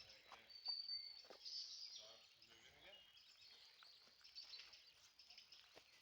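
Faint, high-pitched bird chirps and peeps over quiet outdoor background, with one short held whistle-like note about a second in.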